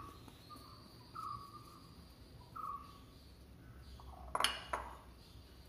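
Faint short squeaks while flour is scraped out of a glass bowl into a steel pot, then a sharp double clink about four and a half seconds in as the empty glass bowl is set down.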